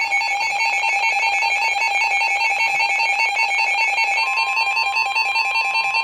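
Emergency Alert System two-tone attention signal: a loud, harsh warbling alarm tone that warns a severe thunderstorm warning is about to be read. About four seconds in, a second steady, slightly higher single tone joins it.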